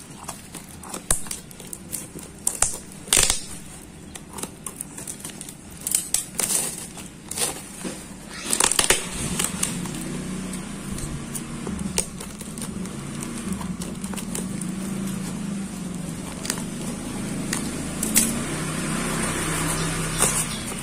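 Scissors snipping and crinkly plastic parcel wrapping and tape being cut, torn and pulled off a cardboard box, in sharp clicks and crackles. About nine seconds in, a low steady hum comes in underneath and grows a little louder.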